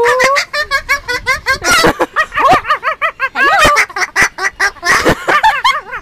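Umbrella cockatoo chattering: a fast, unbroken run of warbling, squawky calls that bend up and down in pitch, opening with a rising call.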